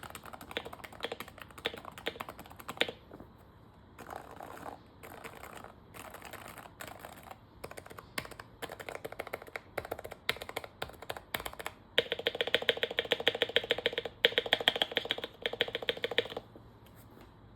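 Custom Topre keyboard with lubed sliders, 35 g rubber domes, a steel plate and PBT keycaps being typed on: a stream of keystrokes with a short pause about three seconds in. About twelve seconds in comes a faster, louder run of keystrokes lasting about four seconds, which stops shortly before the end.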